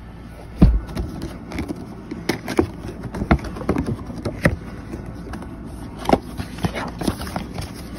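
A heavy knock against the phone about half a second in, then irregular crackles and taps: plastic shrink-wrap being torn and peeled off a boxed vinyl figure, with hands knocking against the phone.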